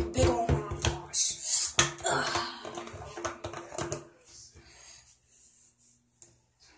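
Plastic cap of a mouthwash bottle being twisted and worked open: a quick run of clicks and knocks that stops about four seconds in.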